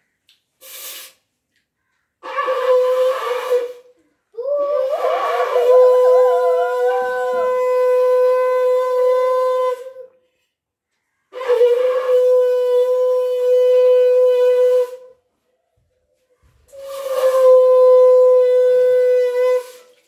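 Conch shell (shankha) blown ceremonially in four long blasts on one steady note, with short gaps between them; the second blast is the longest, at about five seconds.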